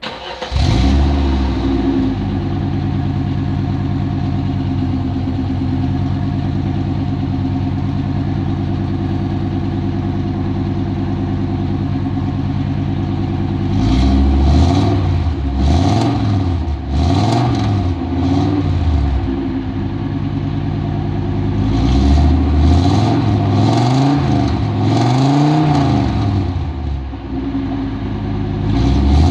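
Audi 90 2.3 inline five-cylinder engine catches on a cold start and settles into a steady idle. Heard from behind at the tailpipe. From about halfway it is revved in two sets of quick throttle blips, the pitch rising and falling several times, dropping back to idle between them.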